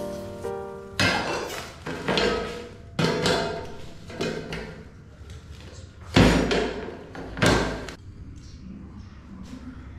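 Stainless steel cooking pot, lid and metal serving tray clanking and thudding as the pot of dolma is covered with the tray and turned upside down onto it. About six metallic knocks with a short ring, roughly a second apart. The loudest is a heavy thud about six seconds in, with another just over a second later.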